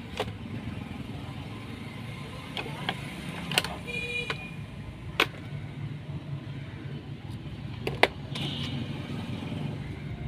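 Sharp clicks and taps of multimeter test probes being handled against a charger's metal barrel plug, over a steady low rumble. A brief beep-like tone sounds about four seconds in.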